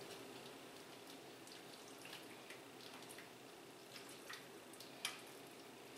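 Faint scattered clicks and drips of a spoon stirring soupy noodles in a stainless steel pot, over a low steady hum; one sharper click about five seconds in.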